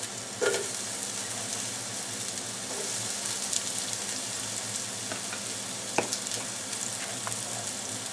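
Sliced onions sizzling steadily in hot ghee in a deep pot, with a few light knocks, the strongest about half a second in.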